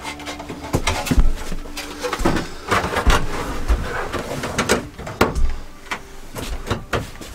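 Irregular knocks, thumps and scraping as a plastic RV shower insert and its faucet valve fittings are handled and pushed into place.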